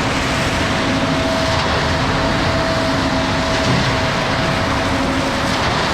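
Concrete mixer truck running steadily: its diesel engine and turning drum give a constant low rumble with a steady whine.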